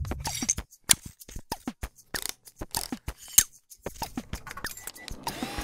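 Animation sound effects: an irregular string of sharp clicks and short pops, many sliding down in pitch, two or three a second, with a brief pause partway through.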